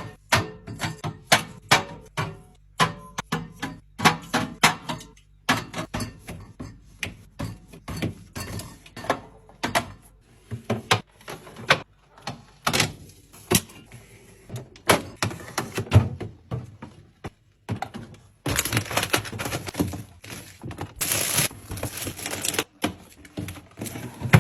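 Items being handled and set down while restocking a fridge: a quick run of knocks and clacks from containers, jars and bottles being placed and stacked. About eighteen seconds in, a louder, steady noisy stretch takes over until near the end.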